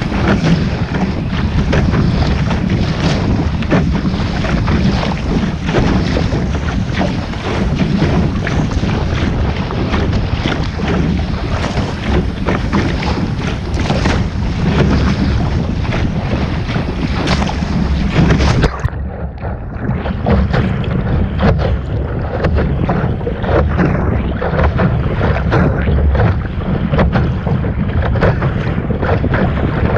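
Heavy wind buffeting the microphone on a sailing boat under way, mixed with water rushing past. About 19 seconds in, the sound suddenly turns duller, losing its upper hiss.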